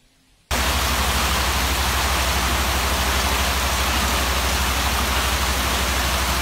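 Heavy rain falling: a dense, steady hiss that starts abruptly about half a second in, with a deep rumble underneath.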